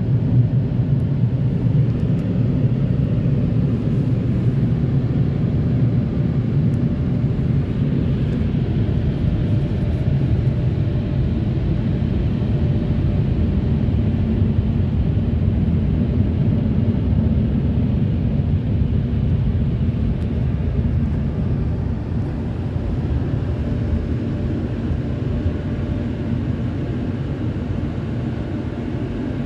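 Touch-free automatic car wash's blower dryers running, a loud steady low rumble heard from inside the car's cabin during the drying stage; it eases off a little near the end.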